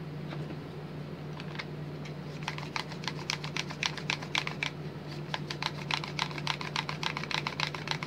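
Plastic bead roller clicking as its two halves are slid back and forth to roll a polymer clay ball into a round bead. A few scattered clicks at first, then quick, steady clicking from about two and a half seconds in.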